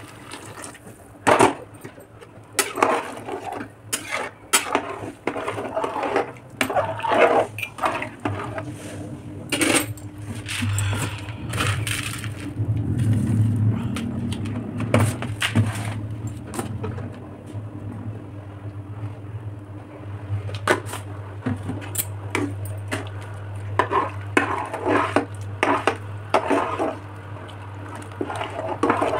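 A steel ladle clinking and scraping against an aluminium pressure cooker pot as rice, vegetables and water are stirred, with many sharp metal clinks throughout.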